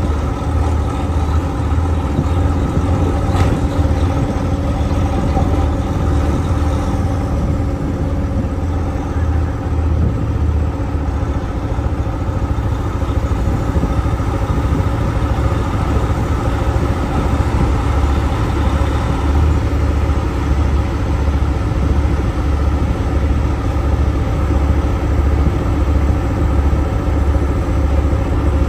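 Log truck's diesel engine running at low speed, heard from inside the cab: a steady low rumble with an even pulse.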